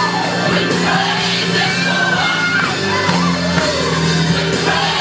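Gospel song with choir singing over held low keyboard and bass notes, with voices shouting and whooping over the music.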